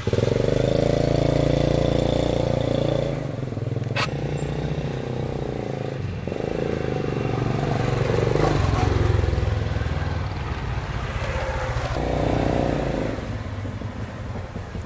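Small step-through motorcycle engine running as the bike pulls away, rides along and pulls up, its note rising and falling with the throttle. The sound comes in suddenly at the start and breaks off sharply a few times.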